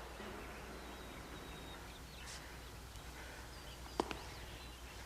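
Quiet outdoor ambience with faint bird chirps, and a single sharp click about four seconds in.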